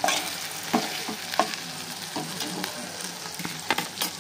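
Sliced onions, green chillies and tomato sizzling in hot oil in an aluminium pot, stirred with a spoon that scrapes and clicks against the pot several times.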